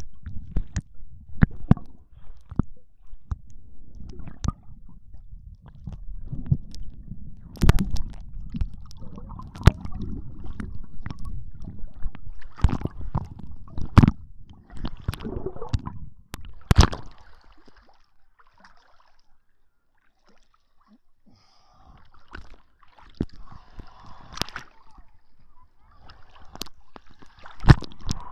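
Muffled sloshing and gurgling of seawater heard through a camera held underwater, with many sharp knocks and clicks against it. It goes quieter a little past the middle, then a hissier splashing returns as the camera nears the surface, with a loud knock near the end.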